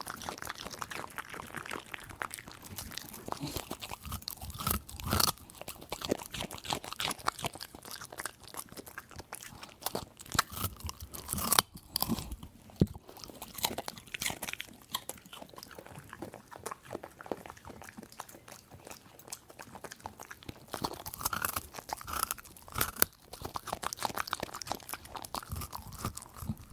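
A dog chewing a raw carrot: wet, irregular crunching as its teeth break up the hard carrot, with a few sharper, louder bites.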